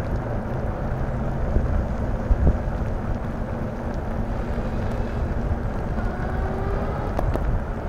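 Steady wind rushing over the microphone of a camera riding along on a moving e-bike, with low tyre-on-pavement rumble.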